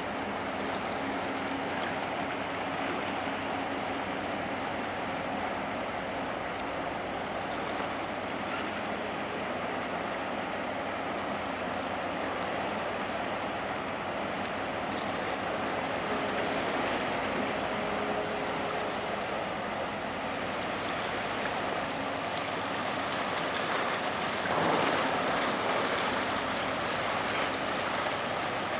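Harbour tug working alongside a container ship: a steady rushing of churned water from its propeller wash, with a low engine hum underneath. It grows louder about 25 seconds in.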